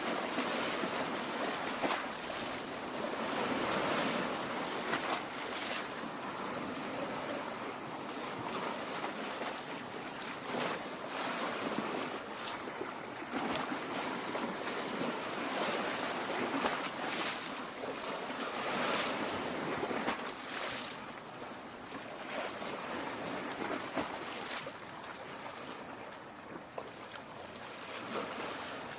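Lake water lapping and splashing against the shore: a continuous wash crowded with small splashes, swelling and easing every few seconds.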